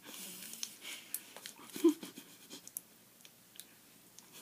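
Faint mouth sounds from people sucking on sour Warheads candies: small clicks and breaths, with two short muffled hums, one at the start and one about two seconds in.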